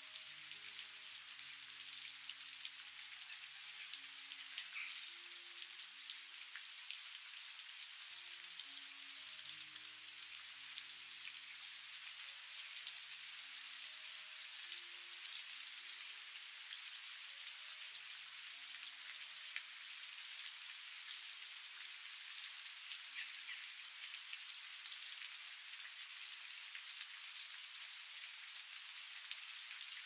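Steady rain falling, an even hiss with many scattered sharp ticks of individual drops.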